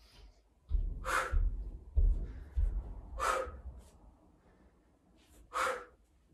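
Forceful noisy exhales through the mouth during a yoga HIIT move, three loud ones about two seconds apart with fainter breaths between. Low thuds come during the first few seconds.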